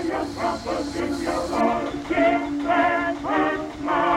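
Music: a song with a singing voice over instrumental accompaniment.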